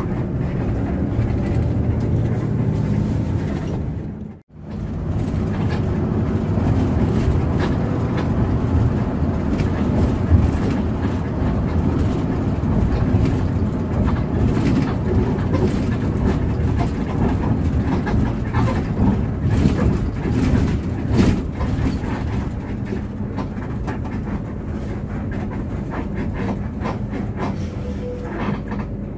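Moving Hino RK8 coach bus: steady low rumble of the engine and road, with frequent small knocks and rattles. The sound cuts out for a moment about four seconds in.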